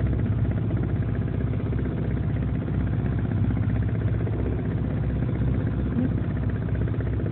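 Volvo Penta MD11C two-cylinder marine diesel running steadily, a low, even throb.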